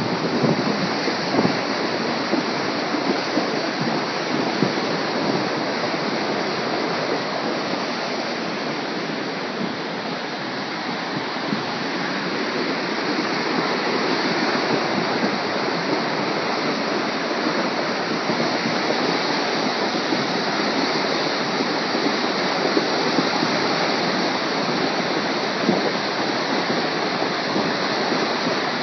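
A river in flood rushing: a steady, heavy wash of fast-moving water that swells slightly in level.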